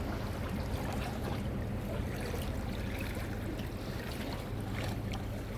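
Water trickling and lapping over a low, steady rumble, with faint scattered ticks.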